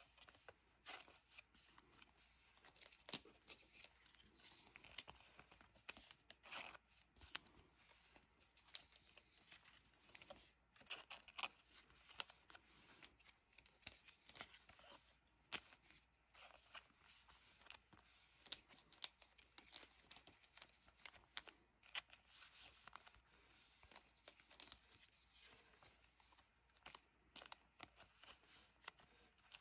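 Faint crinkling and rustling of soft clear plastic card sleeves being peeled from a stack, with light slides and taps of trading cards being slipped into them: many short, irregular crackles.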